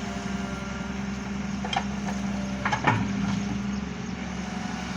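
Heavy machine engine running steadily at an even pitch, with two brief knocks; the louder one comes about three seconds in.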